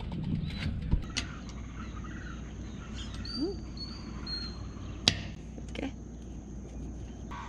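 Scattered light clicks and taps of stainless steel bolts with nylon washers being pushed into holes in an aluminium hull, the sharpest about a second in and about five seconds in, over a steady low hum. A few short high chirps near the middle.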